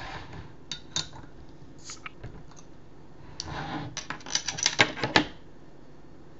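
Metal and glass clinks and taps as a beer bottle's crown cap is opened: a few scattered clicks, then a quick run of clinks about three and a half seconds in.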